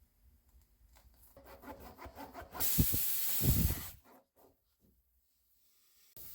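Tire-plug reamer rasping in and out of a screw puncture in a tire's tread, in a quick run of strokes. Air hisses loudly out of the inflated tire through the opened hole for about a second and a half, with a couple of low thumps, then stops; the hiss starts again at the very end.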